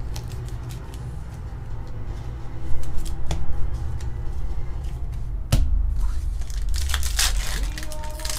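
Pokémon trading cards and a foil booster-pack wrapper being handled: rustling with a couple of sharp snaps, then louder crinkling of the foil near the end.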